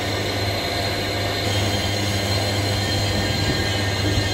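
Metal lathe running with a flywheel mounted on it: a steady machine hum with a thin, constant high whine over it.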